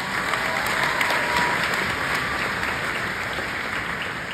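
Audience applauding, the clapping swelling at the start and slowly dying down near the end.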